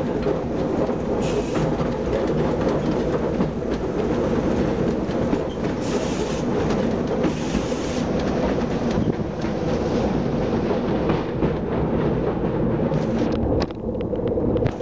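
Wooden Sóller tramcar running along its rails: a steady rumble of wheels on track with the car body rattling, and a few brief higher hissing moments.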